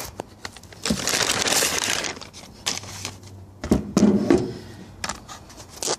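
Rustling and scraping handling noise with several sharp knocks. It is loudest in a burst about a second in and again around four seconds in.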